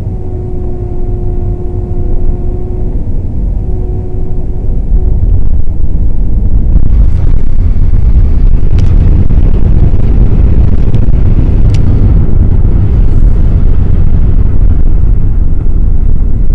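Cabin noise of an Airbus A321 on its landing roll: a low rumble with a steady hum heard twice in the first few seconds. About five seconds in the rumble grows loud and stays loud as reverse thrust and braking come on, with a few sharp rattles from the cabin.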